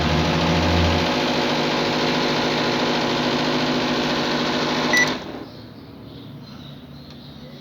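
Microwave oven running after a replacement high-voltage capacitor and diode: a steady, loud hum from the high-voltage transformer and fan, with a low, heavier hum in the first second. About five seconds in it beeps once and the hum stops, leaving only a faint background noise.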